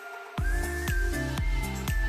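Electronic dance music. After a brief lull, a heavy beat drops in about half a second in: a deep kick drum about twice a second under a held synth line.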